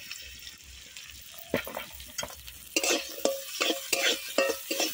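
Sliced onions sizzling in hot mustard oil in a kadai, with a spatula scraping and stirring them against the pan in repeated strokes, about two a second, starting about a second and a half in.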